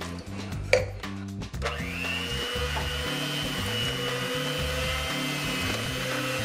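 Electric hand mixer switched on about a second and a half in, its motor then running steadily with a high whine as the beaters churn cake batter. A single sharp click comes just before it starts.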